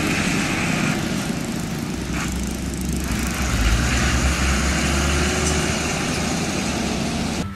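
Heavy trucks passing on a road: a tow truck's diesel engine pulling a cement mixer truck on tow, over steady road noise. A deep engine drone swells in the middle as the trucks go by.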